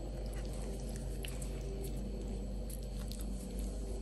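A few faint clicks of a metal fork against a ceramic plate as it cuts a piece of fried fish, over a steady low hum.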